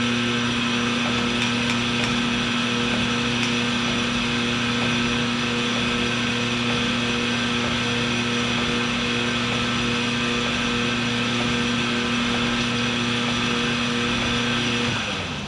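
Sunnen CK10 cylinder honing machine running steadily with a low hum and high whine as it hones an engine cylinder bore through a torque plate, then spinning down with falling pitch near the end.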